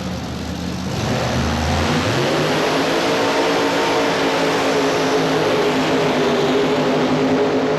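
Modified pulling tractor's engine revving up about two seconds in, then running steadily at high speed.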